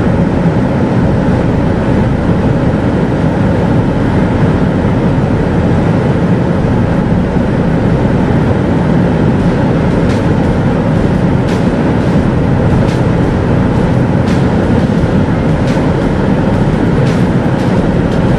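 Interior noise of a 2016 Volvo XC90 D5 cruising flat out at about 220 km/h in seventh gear: a loud, steady rush of wind and tyre noise over the drone of its four-cylinder diesel held at about 3,500 rpm.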